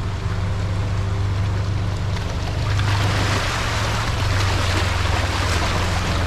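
A side-by-side buggy's engine running steadily at a creek crossing, with a rush of water building up about three seconds in.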